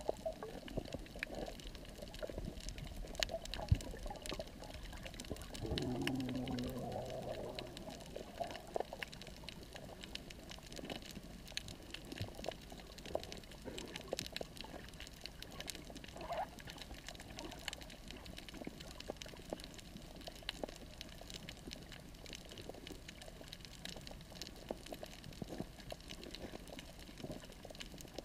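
Underwater coral reef ambience: a steady crackle of many small clicks, typical of snapping shrimp on a reef, over a soft watery hiss. A brief low hum with a falling tone comes about six seconds in.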